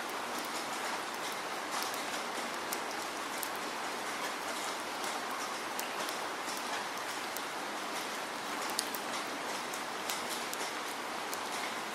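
Steady rain falling, with many individual drops ticking sharply on a wet surface.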